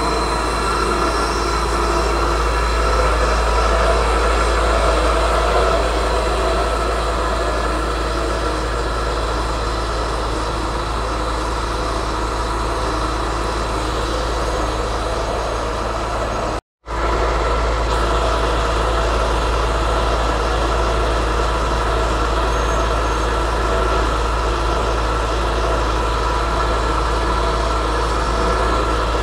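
Diesel engines of heavy fire-rescue trucks running steadily, a deep rumble with no siren. The sound cuts out for a moment about two-thirds of the way through.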